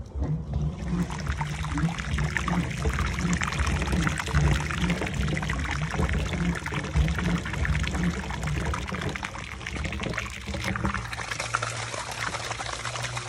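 Dirty brown carpet-cleaning waste water gushing out of a ribbed dump hose and splashing onto asphalt, a steady heavy pour.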